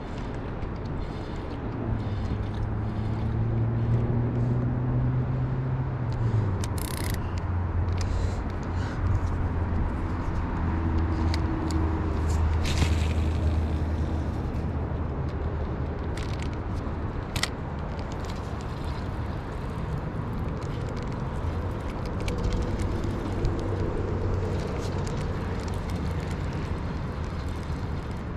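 Motor traffic passing: a steady low rumble with engine notes that slowly rise and fade, and a few sharp clicks over it.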